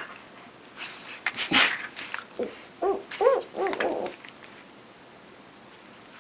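A dog gives about four short whining cries in quick succession, each rising and falling in pitch, amid a few scuffling knocks during rough play.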